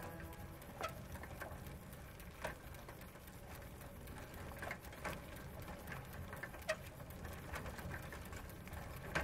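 Bicycle being pedalled: faint, irregular clicks from the chain and crank, a second or more apart, over a low steady hum.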